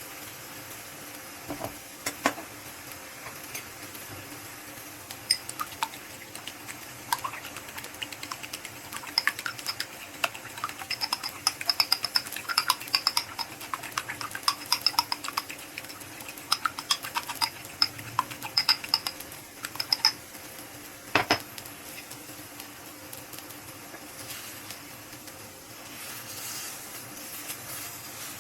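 Utensil clinking rapidly against a bowl, as in beating eggs, with a few scattered clinks at first and a dense run in the middle. A single louder knock comes a little after, over a steady low hiss.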